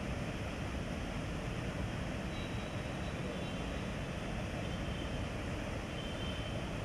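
Floodwater pouring over a drop from an opening in a brick wall and churning below: a steady rushing noise.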